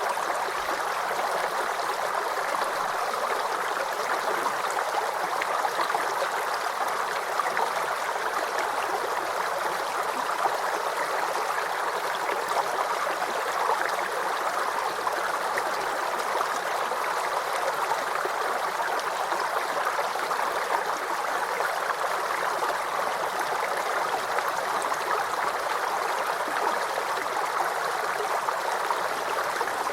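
Shallow forest brook babbling and gurgling over stones, a steady, even rush of running water.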